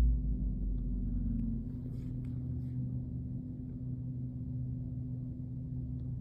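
Steady low hum made of several held low tones. A deep rumble under it fades out in the first couple of seconds, and a few faint clicks come about two seconds in.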